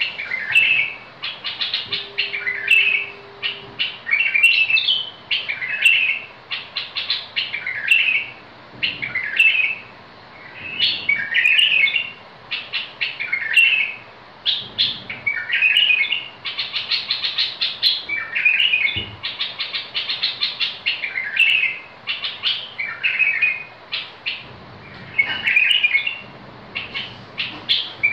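Caged bulbul singing: short warbled phrases repeated every second or two, with quick chattering runs between them.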